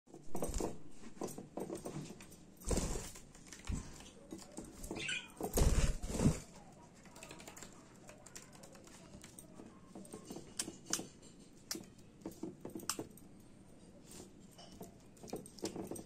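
Budgerigars bathing at a shallow glass bowl of water: a few bursts of wing flapping and splashing in the first six seconds, then scattered light clicks and taps on the wooden floor and bowl.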